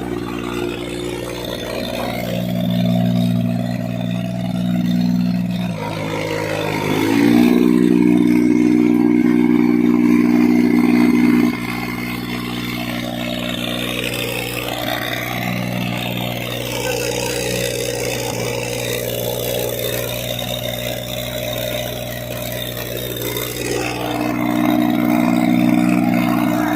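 Diesel engine of a 3-ton XCMG road roller running steadily. About seven seconds in it is revved up to a higher, louder speed, which it holds for about four seconds before dropping back to a steady lower speed; it picks up again slightly near the end.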